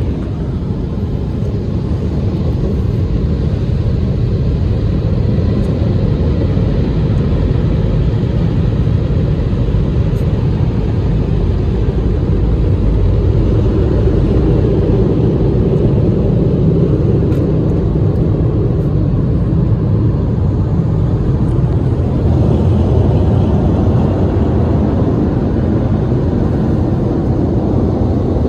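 Loud, steady low rumble heard inside a car's cabin, without breaks or changes.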